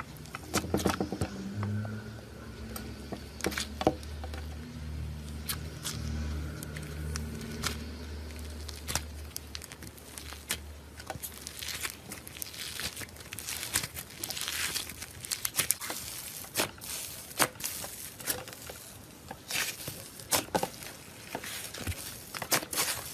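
Slime being pressed, squeezed and stretched by hand, giving irregular small clicks and crackling pops that come thicker in the second half. A low hum runs underneath for the first eight seconds or so.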